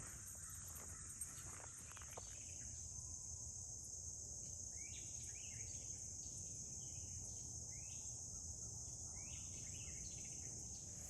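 Faint, steady, high-pitched chorus of insects, such as crickets, chirping outdoors. From about the middle, a bird calls in short repeated phrases.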